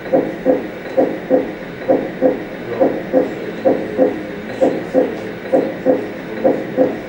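Heartbeat sound: paired lub-dub thumps repeating steadily, a little under once a second.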